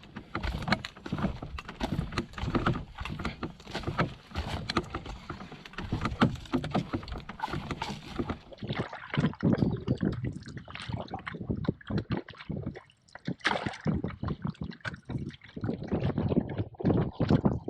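Canoe on the water: a dense run of irregular splashing and knocking, the sound of paddling and of water and paddles against the hull.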